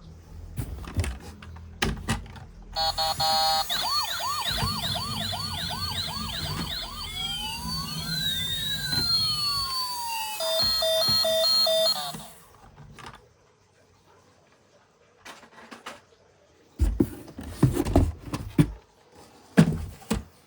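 Electronic siren from a battery-operated toy vehicle, cycling through its modes: a short stepped beeping, a fast run of rising yelps about two a second, slow rising and falling wails, then a high-low two-tone, cutting off suddenly about twelve seconds in. Short clacks and knocks before it starts and again near the end.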